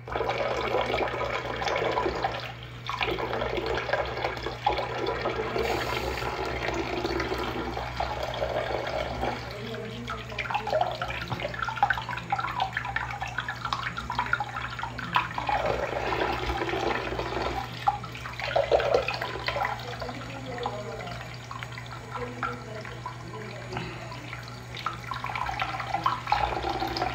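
Bathroom sink faucet turned on and running steadily, water pouring from the spout into the basin. The splashing shifts as a hand moves in and out of the stream.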